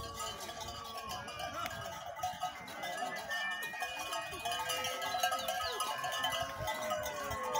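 Many cattle bells clanking and ringing together continuously as a herd of cattle is driven along, getting a little louder toward the end.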